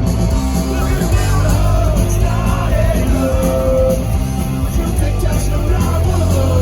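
Punk rock band playing live through a festival PA, with distorted guitars, bass and drums and a shouted lead vocal.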